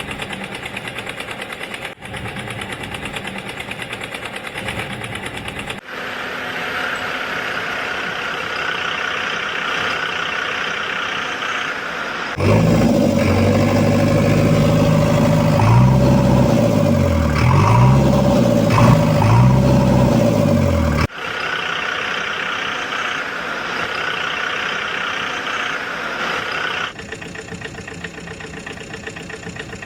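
Engine running in several abruptly cut segments. The loudest one, in the middle, rises and falls in pitch over and over, like an engine being revved up and down.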